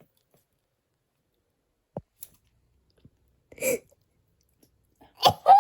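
Mostly quiet, with a single sharp click about two seconds in and a brief rustle of handling a little later. Near the end comes the loudest sound, a short wavering wordless vocal groan.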